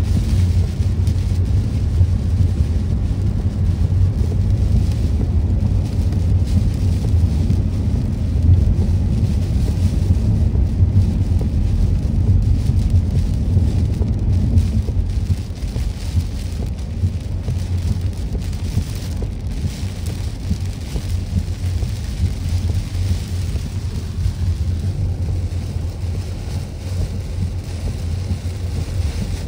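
Heavy rain beating on a moving car's windshield and body, heard from inside the cabin together with tyre and road noise: a steady low rumble with a fine patter, a little quieter about halfway through.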